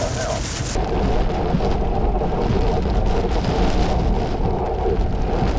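Heavy rain and wind from a tornadic thunderstorm, with a deep steady rumble underneath. The high hiss drops away abruptly about a second in.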